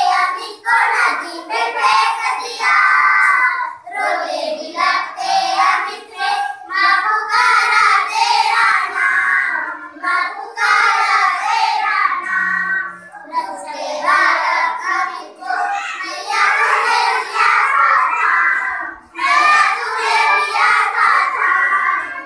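A group of young girls singing a devotional song to the goddess Chandrahasini together, in phrases a few seconds long with short breaks between them.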